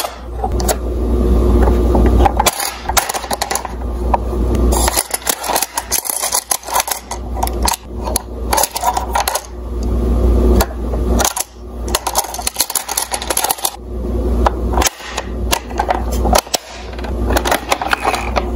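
Plastic toy ambulance being handled: repeated small plastic clicks and rattles as its doors and rear hatch are worked and a little plastic stretcher is pulled out, with fingers rubbing the body and low handling rumble.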